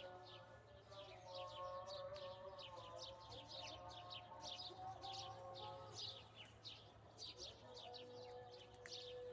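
Songbirds chirping, a quick run of short, falling high notes several times a second, faint and continuous, over faint held tones lower down.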